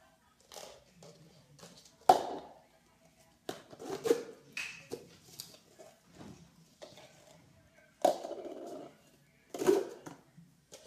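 Cups clacking as they are set down and knocked: a string of sharp, separate clacks, the loudest about two seconds in, and a short clatter about eight seconds in.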